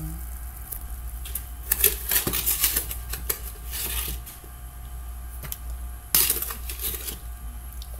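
A spatula stirring yeast into milk in a bowl, knocking and scraping against the bowl in irregular clicks, with one louder knock about six seconds in.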